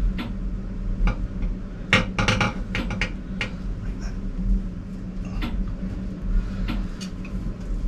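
Scattered metallic clinks and knocks as a piston and connecting rod are worked by hand up out of a cylinder liner of a Ford Lehman marine diesel, with a quick cluster of clinks about two seconds in. A steady low hum runs underneath.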